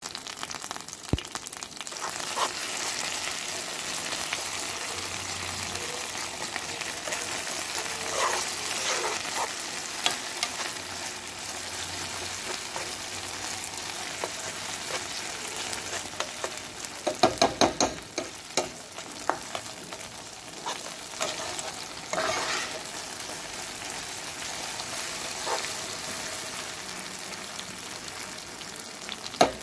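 Tomato paste sizzling as it fries in oil in a frying pan, stirred with a metal spoon that scrapes and taps against the pan. A quick run of spoon clicks comes about seventeen seconds in, and a few more near the end.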